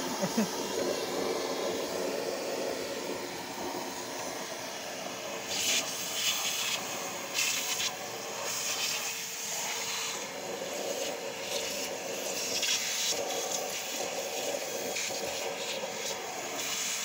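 A wet/dry shop vacuum runs with a steady motor whine and a rush of air at its hose nozzle as it is worked around inside an open desktop computer case to clear out the dust. From about five seconds in, the airflow rushes louder for a moment several times as the nozzle moves.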